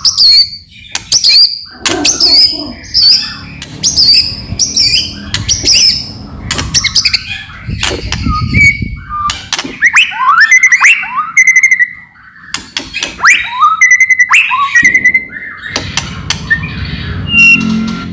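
White-rumped shama (murai batu) singing loudly: a varied song of sharp, rapid clicking rattles mixed with whistled notes and quick upward-sweeping phrases.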